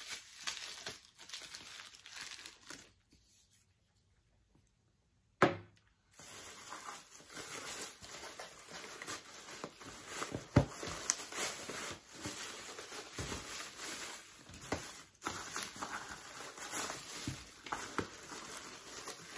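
Shredded paper packing filler rustling and crinkling as hands dig through it and pull out a wrapped item. The crinkling stops for about two seconds a few seconds in and picks up again after a single sharp knock.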